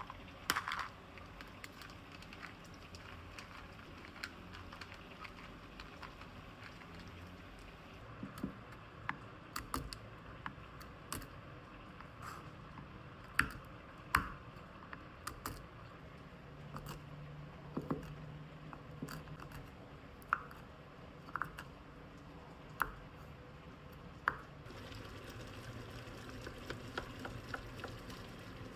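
Scattered light clicks, taps and knocks of kitchen utensils and cookware being handled while making jam, over a faint steady background hum.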